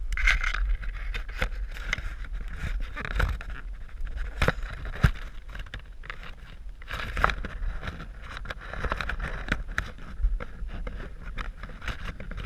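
Leaves and branches rustling and scraping as someone climbs and shifts in a tree canopy, with many sharp twig cracks and snaps, the loudest about five seconds in. A steady low rumble runs underneath.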